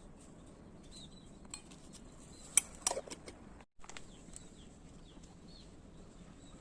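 A metal spoon clinking twice against a dish, about two and a half seconds in, with small birds chirping faintly in the background and a brief drop-out in the sound just after the clinks.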